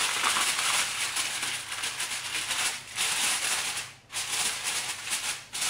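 Aluminium foil crinkling and crackling as it is pressed and folded down over the rim of a baking dish, with brief pauses about three and four seconds in.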